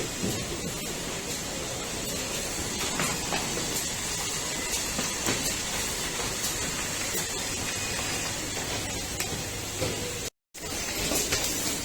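Factory-floor background noise from an assembly line: a steady hiss-like hum with scattered small clicks and knocks. It drops out to silence for a split second near the end.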